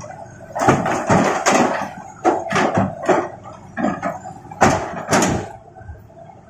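Hard objects knocking and clattering irregularly, a string of sharp clacks of uneven loudness, the loudest a few seconds in; rocks being handled and dropped during loading.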